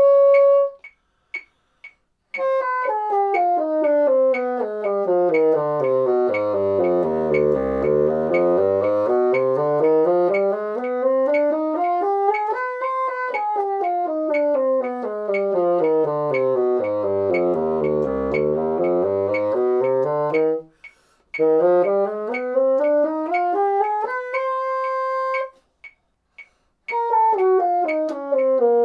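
Moosmann bassoon playing harmonic minor scales in even notes, sweeping down into its low register and back up several times, with a short held note near the end. A metronome clicks steadily underneath, heard on its own in the brief pauses.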